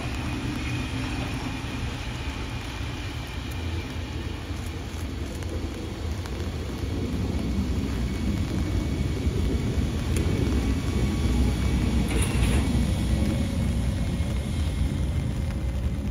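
Electric locomotive E50 091 with E41 001 running past: a low rumble that grows louder about halfway through.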